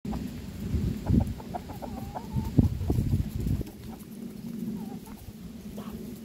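Free-range chickens clucking softly while foraging, short scattered calls with one brief gliding call. A loud low rumble runs under them and stops about three and a half seconds in.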